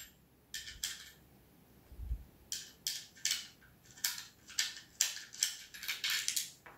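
Allen key turning a small Allen screw out of an air-pistol grip: a series of short metallic scrapes and clicks, a few at first and then about three a second from about two and a half seconds in, with one dull low thump in between.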